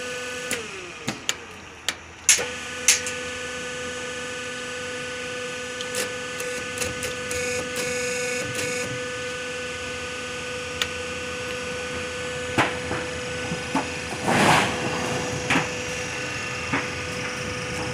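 Glazed tile roll forming machine's motors running with a steady electrical hum. The hum sags in pitch and drops out about half a second in, then comes back about two seconds in. Scattered metallic clicks and knocks are heard, with a short rushing noise near the end.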